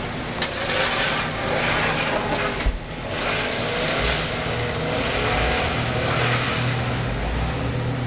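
Car engines revving with wheels spinning in deep snow, the pitch wavering up and down. There is a short thump a little under three seconds in.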